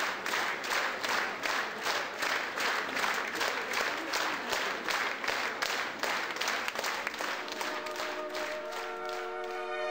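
Audience applauding in rhythmic, unison clapping, about three or four claps a second. The clapping loses its beat and fades as orchestral music with strings comes in near the end.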